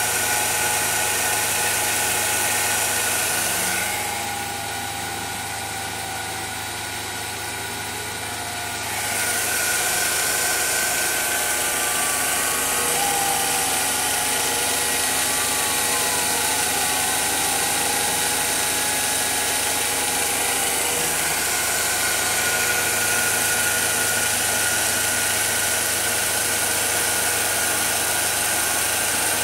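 CNC milling machine running while it mills a cam lobe: a steady machine hum with several fixed tones and a hiss. The hiss drops away for about five seconds, from about 4 s to 9 s, and short gliding whines come and go in the middle.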